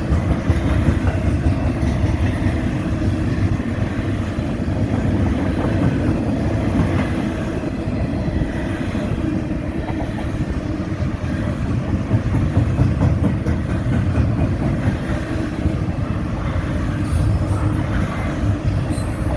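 Intermodal freight train's cars rolling past steadily, with wheels rumbling and clattering on the rails.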